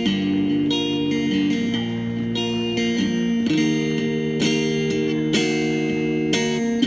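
Electric guitar played through an amp with no vocals. It plays strummed chords, a new chord about every second, each ringing on into the next.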